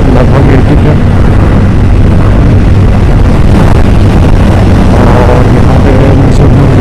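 Motorcycle riding at steady road speed: loud, constant wind rush over the microphone with the engine running underneath.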